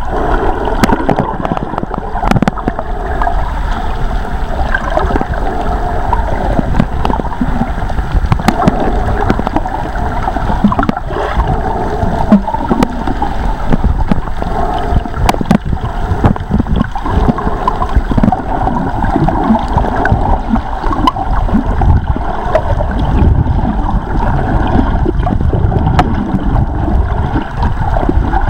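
Steady, muffled water noise, gurgling and rushing as heard through an underwater camera, with scattered sharp clicks.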